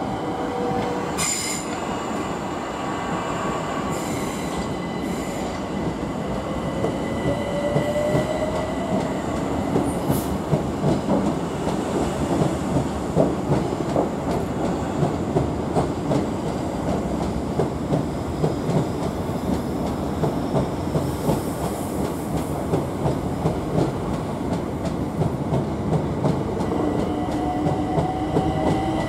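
A Southeastern Electrostar electric train runs slowly past. Its wheels click steadily over rail joints and points, with thin squeals from the wheels, and a rising whine about a quarter of the way in.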